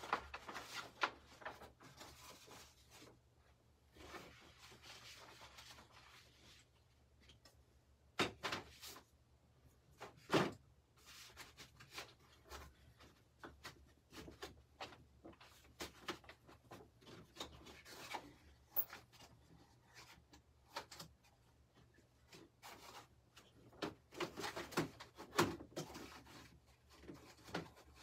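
Scattered knocks, clicks and rustling of hands handling an embroidery hoop and stabilizer while hooping it, with the loudest knocks about eight and ten seconds in and another cluster near the end.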